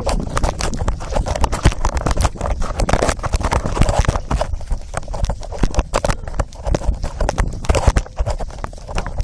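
A phone taped to a Rhodesian ridgeback's collar bumping and rubbing against the moving dog's neck and fur: a steady run of irregular knocks and scraping on the microphone, over a low rumble.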